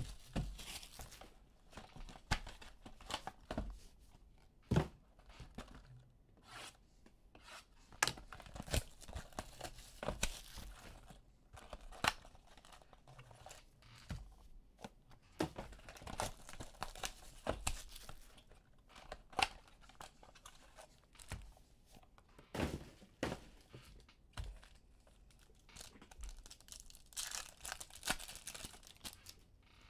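Plastic shrink wrap being torn off and crinkled while a box of trading card packs is opened, with the cardboard boxes and cards handled. It is a steady run of irregular rustles, tearing sounds and light sharp taps.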